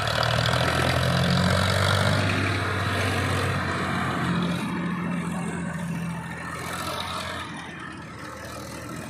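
Heavy diesel engine running steadily, louder for the first few seconds and then fading down about six seconds in.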